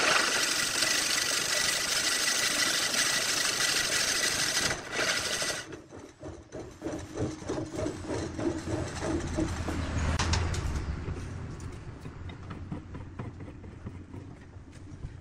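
Long hollowing tool cutting inside a segmented wooden vase spinning on a wood lathe: a loud, steady scraping hiss as shavings pour out. About halfway the cut eases and the sound drops to a quieter, rougher scraping over the lathe's low hum, fading toward the end.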